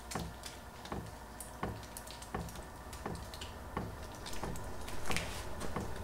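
XVentures portable diesel heater starting up: its fuel pump ticking steadily, about three ticks every two seconds, over the steady hum of its fan.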